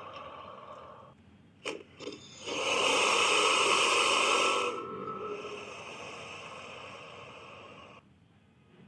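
Tylosaurus creature sound effect: two short clicks, then a loud breathy hiss for about two seconds that falls away into a quieter, rasping breath.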